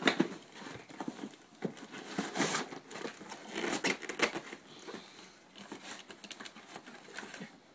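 Cardboard toy box being handled and shifted about: irregular rustling, crinkling and light knocks.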